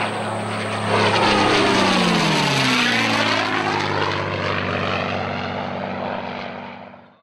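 Propeller airplane flying past: a steady engine drone swells loudly, its pitch drops as it passes, then it fades away near the end.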